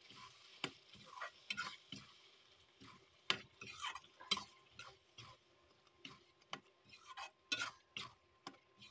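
Metal ladle stirring a watery pea-and-masala gravy in a steel kadhai, with irregular scrapes and clinks of the ladle against the pan.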